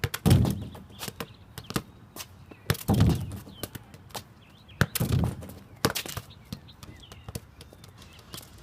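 A football being kicked and struck during play, with four heavy thuds, near the start, about three seconds in, and two close together around five to six seconds, and many sharp lighter taps and clicks between them.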